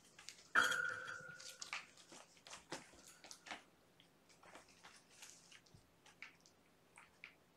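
Kittens romping with toys and a cardboard scratcher: a sharp knock about half a second in that rings briefly, then scattered light clicks, taps and scratches that thin out.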